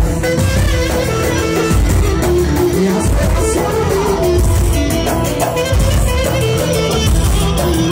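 Live band playing instrumental music: a moving melody line over a steady bass and drum beat.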